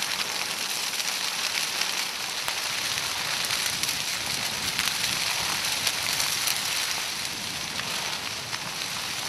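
Dry tall prairie grass burning along an advancing flame front: a steady hissing crackle dotted with many small pops.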